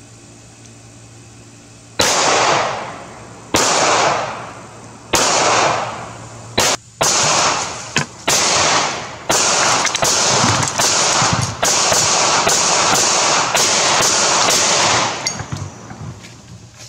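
A 9mm Glock 17 pistol firing a string of shots, each with a ringing echo. The first few come about a second and a half apart, then the rest follow faster until the firing stops about fifteen seconds in.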